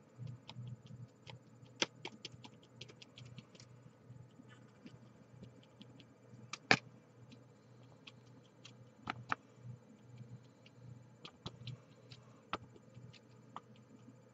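Scattered light clicks and taps of a clear plastic candy-kit tray and its plastic scoop being handled, with a few sharper clicks, over a low steady hum.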